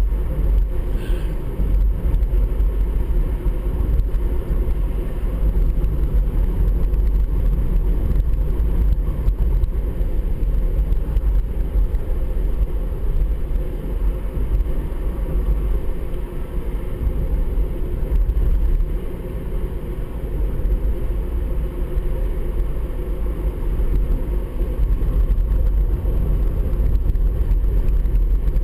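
Inside the cabin of a Honda CR-Z cruising on an open road: a steady low rumble of engine and road noise.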